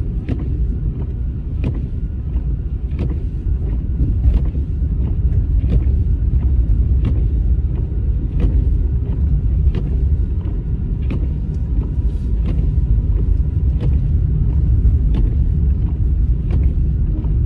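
A car driving on snow-covered roads, heard from inside the cabin: a steady low rumble of engine and tyres, with faint light clicks about once a second.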